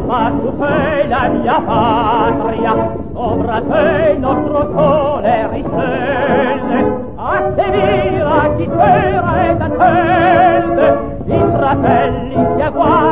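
A choir singing, the voices wavering with vibrato, in phrases broken by short pauses about every four seconds.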